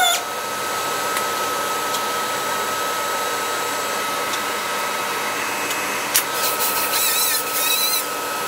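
Four-post vehicle lift being lowered: a steady rushing hiss. There is one click about six seconds in, and a wavering high whine over the last two seconds.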